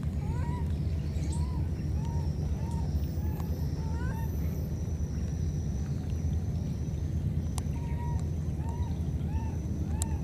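A baby monkey giving short, squeaky calls over and over, one every half second or so, each rising and falling in pitch. Under them runs a steady low rumble.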